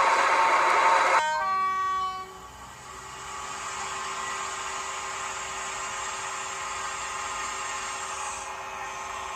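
Dapol N gauge Class 68 model's DCC sound decoder playing diesel locomotive sounds through its small speaker: a loud sound that cuts off sharply about a second in, a brief run of short stepped tones, then a quieter, steady engine sound.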